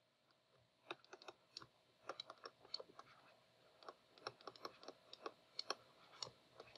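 Faint, irregular clicks and taps of a stylus on a tablet screen as words are handwritten, several a second.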